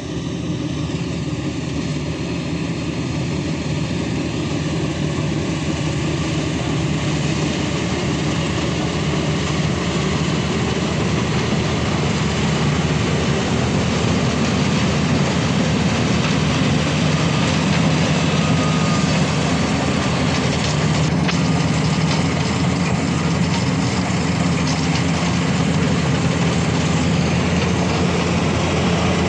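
Maxxi Bhimo 102 combine harvester's engine running steadily under load, gradually growing louder.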